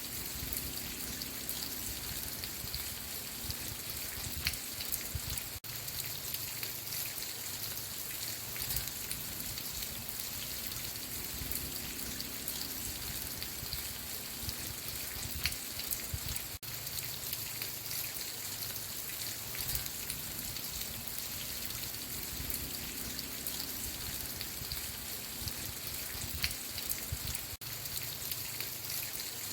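Steady rain falling, an even hiss with many small drop ticks. The sound cuts out for an instant about every eleven seconds, the seam of a looped rain recording.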